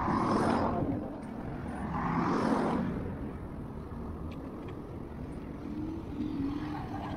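Road traffic noise: a steady rumble that swells twice in the first three seconds.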